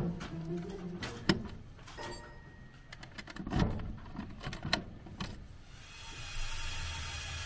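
Small wooden mailbox door being opened and shut by hand: a few sharp clicks and knocks from the door and its brass latch, with a steady hiss setting in near the end.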